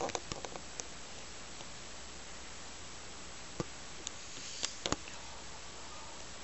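Steady hiss of recording noise, with a few faint short clicks scattered through it.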